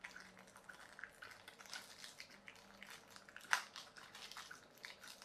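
Small plastic bag crinkling and rustling as fingers work inside it, with many light ticks and one sharper click about three and a half seconds in.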